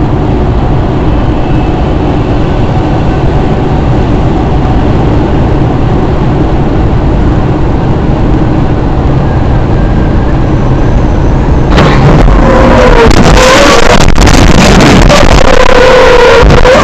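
Loud, steady rumble of a moving vehicle, engine and road noise as picked up by a dashcam. About twelve seconds in it turns louder and harsher, with a wavering tone running through it.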